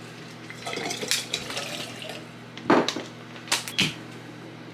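Dishes and utensils clattering in a kitchen, with a few sharp clinks and knocks, the loudest near the middle and two more about three quarters of the way through.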